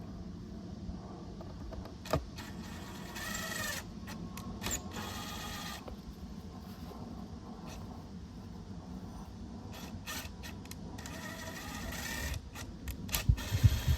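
Hand work on a boat jump seat's bracket and screws: a sharp click, short scraping and whirring as parts are pushed and turned, and a few heavier knocks near the end as the seat is worked into line.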